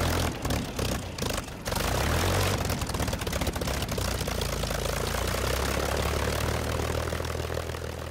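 Propeller aircraft's piston engine running, uneven and crackling for the first second or so, then settling into a steady drone that begins to fade near the end.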